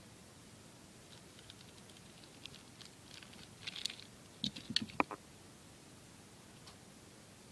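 Light clicking and rustling of handled plastic toy parts and packaging, with a cluster of sharper clicks about four and a half to five seconds in.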